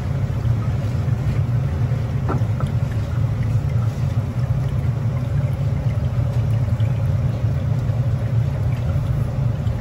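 Steady low rumble from kitchen equipment, with no sizzle standing out; a single faint click comes about two and a half seconds in.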